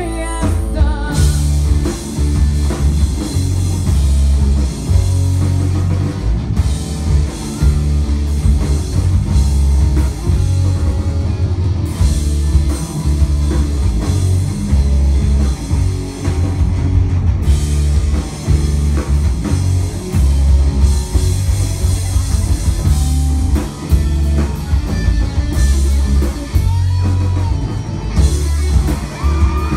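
Live rock band playing loud, with no vocals: two electric guitars, electric bass and a drum kit driving a steady beat.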